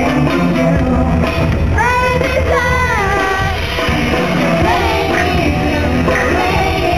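Loud live pop concert music over an arena sound system, with a heavy steady beat and a sung line that slides in pitch about two seconds in.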